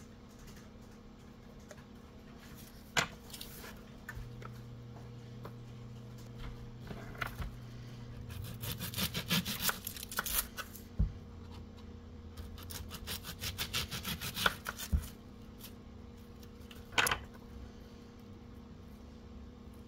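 A small knife scraping and peeling the dry, papery skin off an onion, in two runs of quick scratchy strokes, with a few single clicks. A steady low hum runs underneath.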